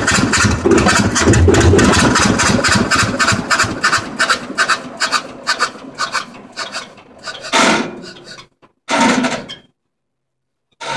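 John Deere R's two-cylinder diesel engine shutting down: its slow exhaust beats get farther apart and fade away as it coasts to a stop. Two short louder bursts come near the end, then it goes quiet.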